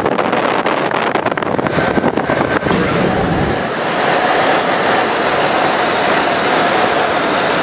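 Gusty wind buffeting the microphone for the first few seconds. From about four seconds in it gives way to a steady rush of wind and road noise from a moving car.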